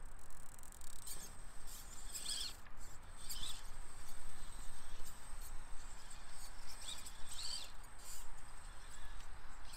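Small RC rock crawler driving over loose rocks: a thin steady electric whine from its motor and drivetrain, scattered clicks of tyres and chassis on stone, and a few short high squeaky chirps.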